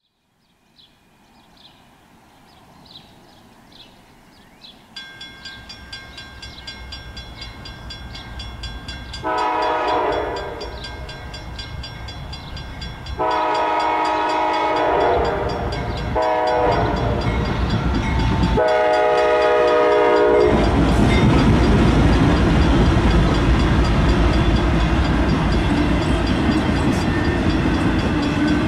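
Diesel locomotive horn blowing four blasts for a grade crossing, over a steady high ringing. Then the loud rumble and clatter of the train passing the crossing.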